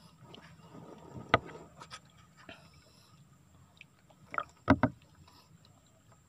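Handling noises aboard a small boat: a soft rustle and one sharp knock about a second in, then a quick cluster of three knocks a little past the middle.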